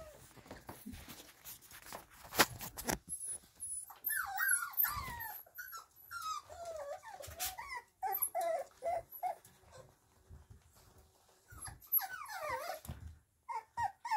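Kromfohrländer puppies whining in their pen, many short high calls that rise and fall, starting about four seconds in. A sharp knock, the loudest sound, comes about two seconds in.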